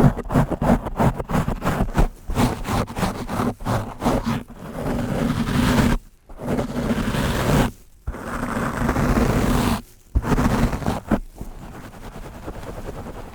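A brush scraping fast and hard over a microphone: rapid short strokes at first, then several longer sweeps a second or more long with brief breaks between, then quick strokes again and a softer rub near the end.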